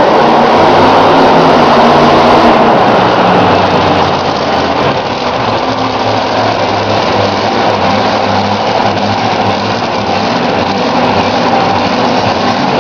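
Mopar Magic monster truck's supercharged engine running loud as the truck drives across the arena floor, easing off slightly about four seconds in.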